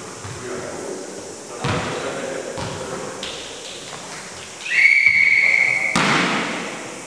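Volleyball referee's whistle blown once, a steady high-pitched blast of a bit over a second, starting about two-thirds of the way in. Right after it comes a loud thud that rings on in the hall. A few softer thuds come earlier.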